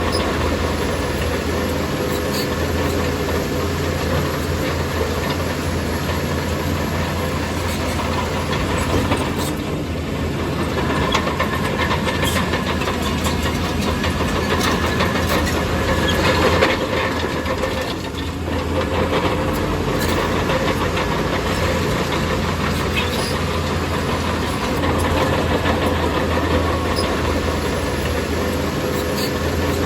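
Bulldozer's diesel engine running steadily at work, with scattered metallic clanks and rattles over the engine.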